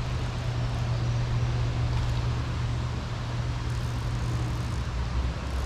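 Steady low engine drone over a wash of outdoor noise, dropping to a lower pitch near the end, as of a motor vehicle or aircraft passing at a distance.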